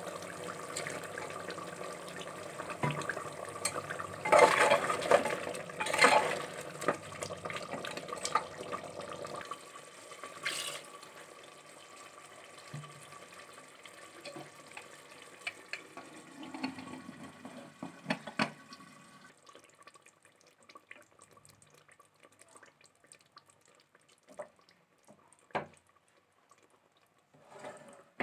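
Water being poured into an aluminium pressure cooker of meat curry, splashing for about ten seconds with a few louder clatters around four to six seconds in, then fading to faint cooking sounds with scattered clicks.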